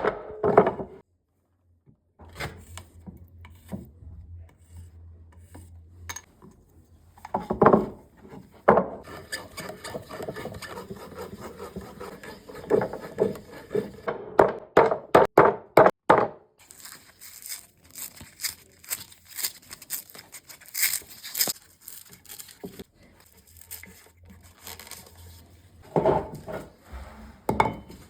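Hand saw cutting an oak barrel head, in uneven runs of scraping strokes with short pauses between them.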